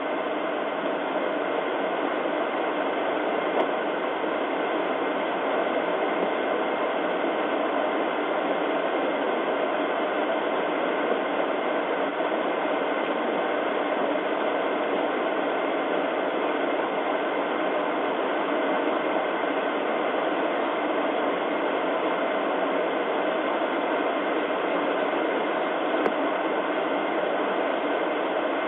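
Steady hiss of static on the police dashcam's audio, with a faint tick a few seconds in and another near the end.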